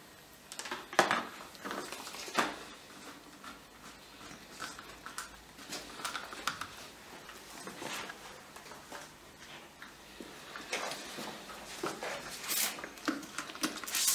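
Gloved hands handling a plastic trigger-spray bottle: scattered faint clicks and rustles, with a few short, sharp hissing bursts near the end.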